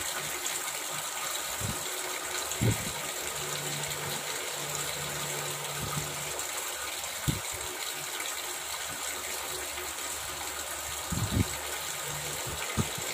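Steady rushing noise with a few low thumps.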